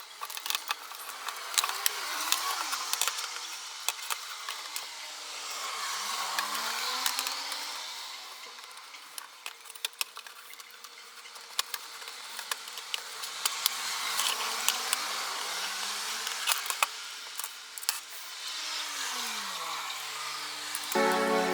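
Wood being worked with a tool: a rasping hiss that swells and fades over several seconds at a time, with many small clicks and knocks.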